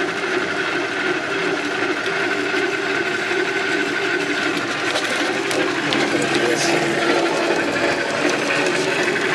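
1960s Craftsman horizontal metal-cutting bandsaw running steadily under power, its single-phase capacitor-start electric motor driving the blade through a belt: an even mechanical hum.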